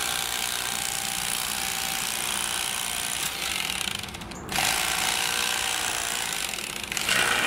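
Rapala cordless lithium electric fillet knife running as it cuts through a coho salmon fillet, cutting out briefly about four seconds in and starting again.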